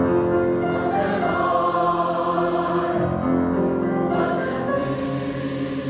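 A mixed chamber choir singing held chords, the harmony shifting about three seconds in.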